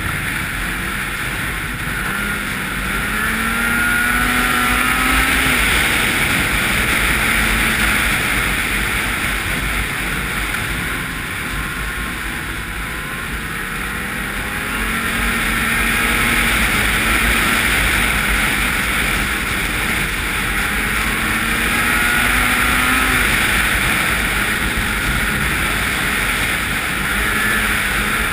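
Ski-Doo 800 snowmobile's two-stroke engine running at speed along a trail, its pitch rising and falling with the throttle a few times, over a steady rushing noise.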